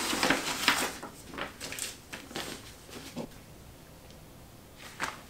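Paper rustling and crackling as envelopes and documents are handled, busiest in the first second, then a few small rustles and clicks dying away to quiet.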